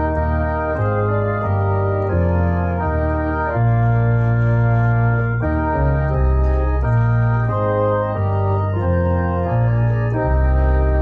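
Organ playing a hymn tune in sustained chords over a moving bass line, the chords changing about every half second to a second.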